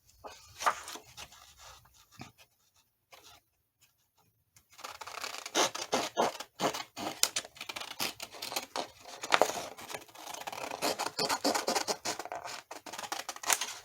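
Scissors cutting paper, a run of short snips with paper rustling. After a few faint snips and a near-quiet pause, the snipping turns steady and busy from about five seconds in.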